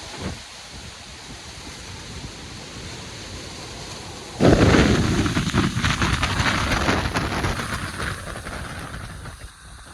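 Hurricane-force wind and rain blowing, with a strong gust slamming in suddenly about four seconds in, buffeting the microphone with a low rumble before easing near the end.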